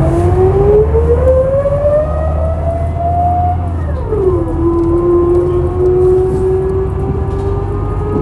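Scania L94UB bus's ZF automatic gearbox whining loudly as the bus accelerates. The whine rises steadily in pitch, drops sharply at an upshift about four seconds in, then climbs slowly again over the engine's low rumble.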